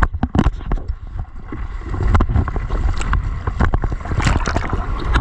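Seawater splashing and rushing right at the microphone while riding a small wave, with a constant low buffeting rumble and many sharp, irregular splashes.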